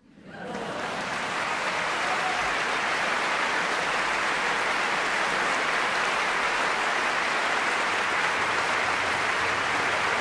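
Large concert audience applauding, starting the moment the piano piece ends, growing over the first second or two and then holding steady and dense.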